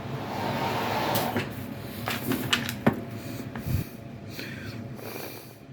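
Handling noises: a rustling scrape, then several sharp knocks and a dull thump.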